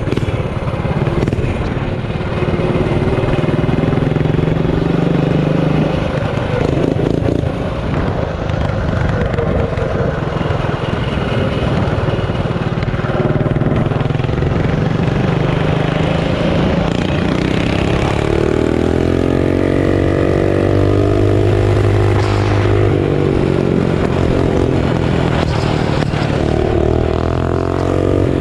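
Mini bike engine running under throttle, revving up and easing off several times as it is ridden, with the pitch climbing highest a little past the middle.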